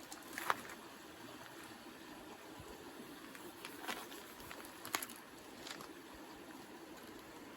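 Wood fire crackling in a flat steel fire pit: a handful of sharp pops scattered over a steady low rush.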